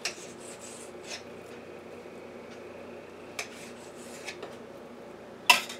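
Kitchen knife cutting raw chicken breast into chunks on a cutting surface: a few short scraping strokes, then a sharper knock near the end. A low steady hum runs underneath.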